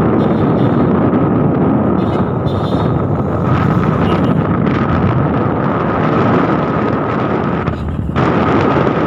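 Vehicle driving along a road, its running drowned in heavy wind rumble on the microphone, with a thin steady whine throughout and a brief drop in the rumble shortly before the end.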